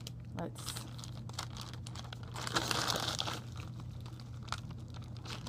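Clear plastic bag crinkling and rustling as it is handled and rummaged through, in irregular crackles that are busiest about two and a half to three seconds in.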